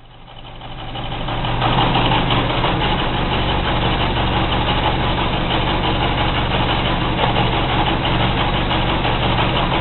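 Car engine idling steadily with an annoying whirring noise that goes away when the clutch pedal is pressed, which the owner takes for clutch noise. The sound fades in over the first couple of seconds, then holds steady.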